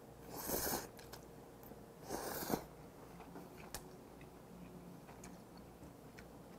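Cream carbonara buldak ramen noodles slurped into the mouth twice, about half a second in and again about two seconds in. Quiet chewing with small wet clicks follows.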